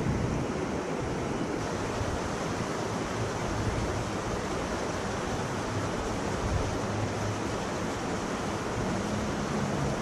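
Shallow river water rushing over a low weir and rapids, a steady wash of noise. A low steady hum joins near the end.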